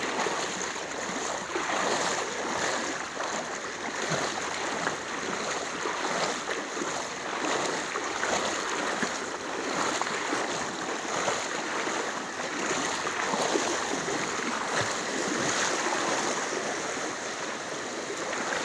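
Floodwater flowing steadily in a strong current through a street, with splashing from legs wading through it.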